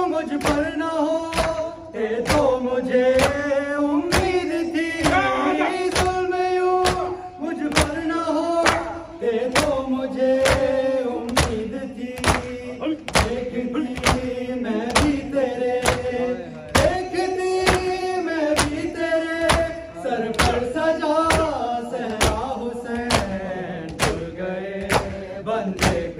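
Male voices singing a noha lament in unison over the steady beat of a crowd's matam: hands striking bare chests together, about once every three-quarters of a second.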